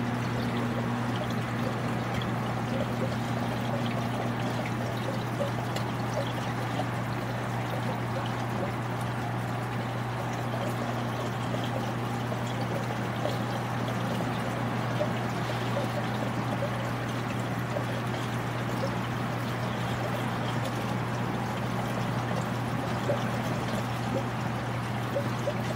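Reef aquarium water trickling and splashing steadily, over a steady low hum.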